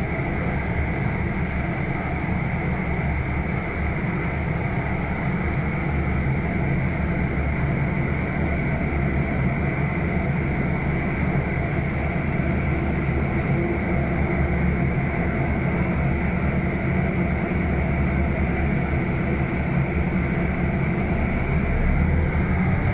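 Cabin noise of a Scania N280UB city bus running on compressed natural gas: a steady low engine drone with a steady high whine over it. It swells slightly near the end.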